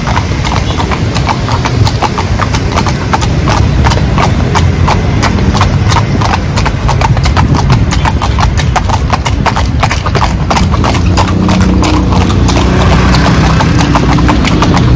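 Hooves of a pair of carriage horses clip-clopping steadily on a paved road, heard from the horse-drawn calèche they are pulling, over the low rumble of the ride.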